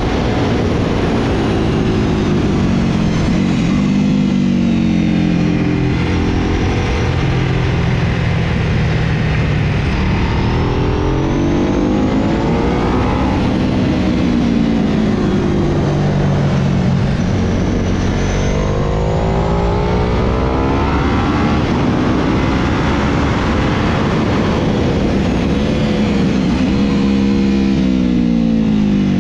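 Sportbike engine on the track at speed, its pitch climbing hard and dropping again several times as it accelerates out of corners and slows for the next, with a steady rush of wind noise over it.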